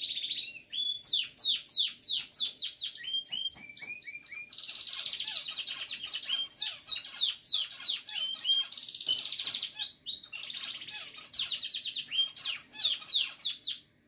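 Pet cage bird singing a long, varied song: runs of quick downward-sweeping chirps broken by several long, rapid trills.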